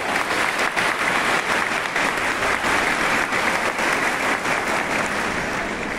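Crowd applauding, a dense steady patter of many hands clapping that eases off slightly near the end.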